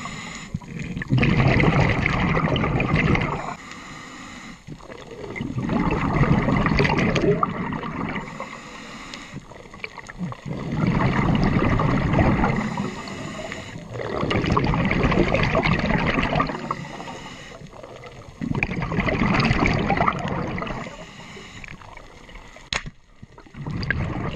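Underwater sound of a scuba diver breathing through a regulator: rumbling, gurgling bursts of exhaled bubbles about every four to five seconds, with quieter inhale stretches between them. A single sharp click sounds near the end.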